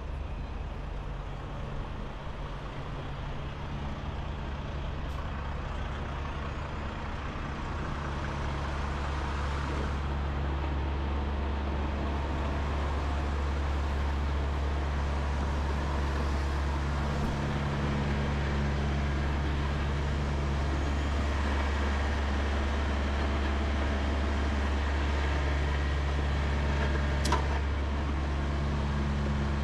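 Semi-truck's diesel engine running, a steady low drone that grows gradually louder over the first several seconds, with one short sharp chirp near the end.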